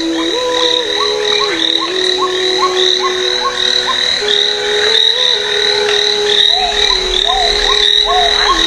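Chorus of wild animal calls: short rising chirps repeating about twice a second over a steady high trill, with a low held tone that steps up and down in pitch.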